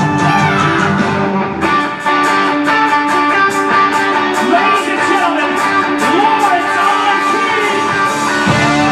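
Rock music: electric guitar over a steady drum beat, with bending lead lines.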